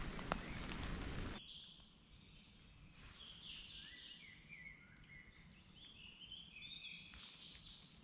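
Songbirds singing in woodland: many short whistled and chirped phrases, some rising and some falling, heard faintly. For about the first second and a half there is a steady hiss, which cuts off suddenly.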